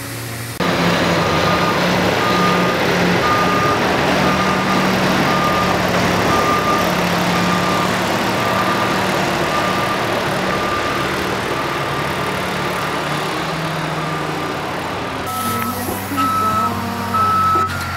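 A vehicle's reversing alarm beeping steadily, roughly twice a second, over a running engine and a loud steady rushing noise. The sound starts suddenly about half a second in; after a cut about fifteen seconds in, the beeping carries on slightly higher in pitch.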